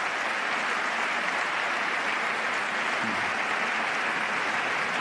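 Sustained applause from a large crowd of lawmakers in the chamber, dense and steady, cutting off abruptly at the end.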